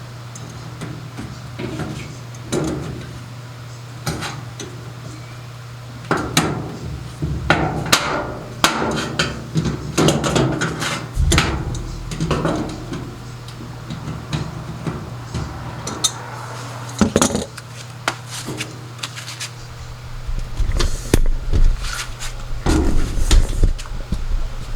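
Scattered knocks and clanks of pliers and parts against a washing machine's drain-pump housing and hose fittings as the new pump is fitted, over a steady low hum.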